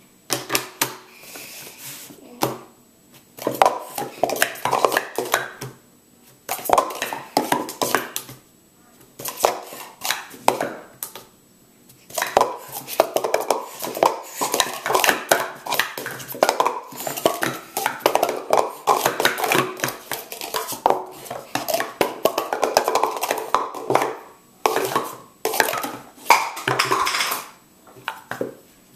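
Speed Stacks Pro Series plastic sport-stacking cups clattering rapidly as they are stacked up into pyramids and swept back down on a stacking mat, in fast bursts of clicks with short pauses between sequences.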